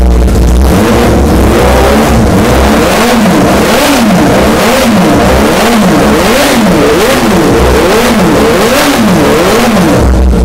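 Sport motorcycle engine through an aftermarket Prospeed slip-on exhaust, blipped again and again on a rear stand so the revs rise and fall about one and a half times a second, settling back to idle near the end. The recording is distorted from overload.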